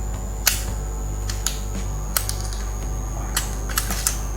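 Scattered sharp clicks and taps of small laptop parts being handled as the wireless card is detached and lifted out of a ThinkPad T470's motherboard, about seven clicks spread irregularly over a few seconds.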